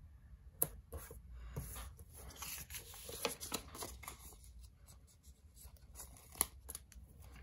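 Paper stickers being peeled from a sheet and pressed down onto a planner page: soft rustling and rubbing with scattered light ticks, and two sharp clicks, one about half a second in and one near the end.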